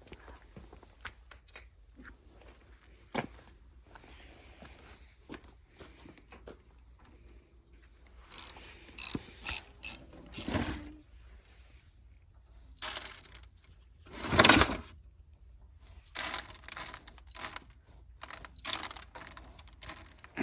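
Scattered scrapes, clicks and knocks of hand-cleaning the inside of a combine harvester, working leftover rice grain out of its metal parts by hand. The loudest knock is about two-thirds of the way through.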